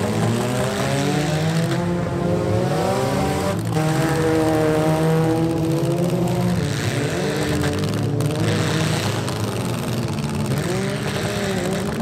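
Several compact demolition-derby cars' engines revving at once, their pitches rising and falling as the cars push and shove in the arena.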